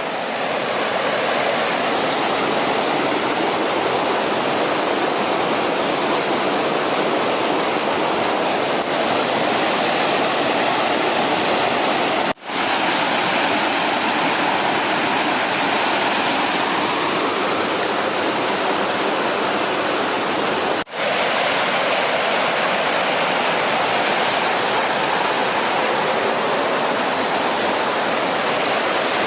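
Steady, loud rush of flowing water, like a stream or small waterfall, interrupted twice by a split-second dropout.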